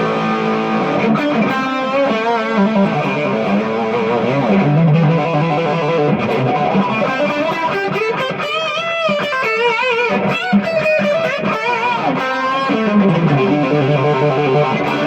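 Electric guitar played through a Donner Yellow Fall analog delay pedal into a 5150 amplifier, with sustained notes. In the middle the notes waver in pitch with vibrato and bends.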